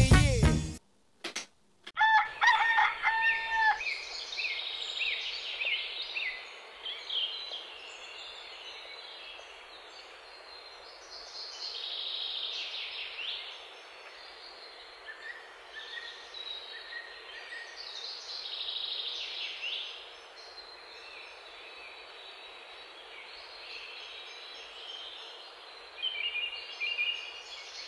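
Morning ambience: many small birds chirping over a steady hiss, with a rooster crowing twice in the middle stretch.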